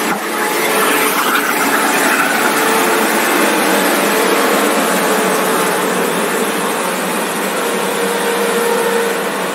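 A lorry's engine straining up a steep hill road, a steady drone under load.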